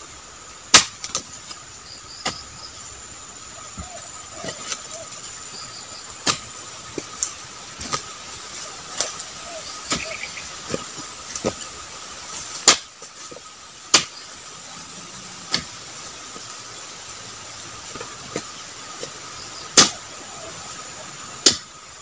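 Irregular sharp chopping strikes of a long-handled dodos (chisel blade on a pole) hacking at the base of a young oil palm, roughly one blow every one to two seconds, some much louder than others, over a steady high hum and hiss.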